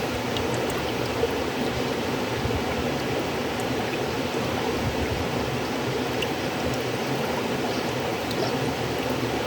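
River water flowing steadily over stones, an even rushing with faint scattered splashes.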